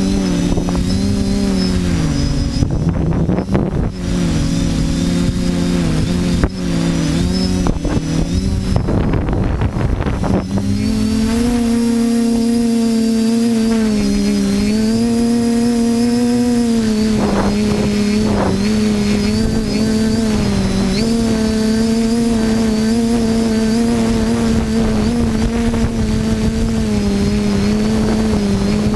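TBS Discovery quadcopter's electric motors and propellers buzzing, the pitch wavering up and down as the throttle changes. Gusty wind rumbles heavily over it for the first ten seconds or so.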